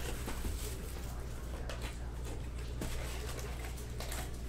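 Hands opening a cardboard trading-card hobby box: soft scrapes and rustles of the box flaps and foil-wrapped packs, over a steady low hum.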